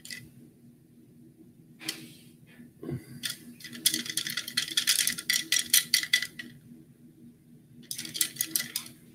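Paintbrushes rattling and clicking against one another as they are sorted through by hand while one is picked out. There is a burst of rapid clicking about four seconds in that lasts a couple of seconds, then a shorter burst near the end, over a faint steady hum.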